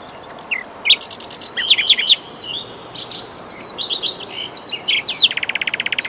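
Birdsong: small birds chirping and whistling in quick, high notes, and about five seconds in a fast, even trill lasting about a second.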